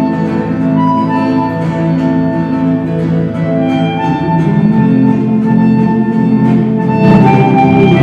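Live acoustic band music: held melody notes over guitar and upright bass, growing louder about seven seconds in.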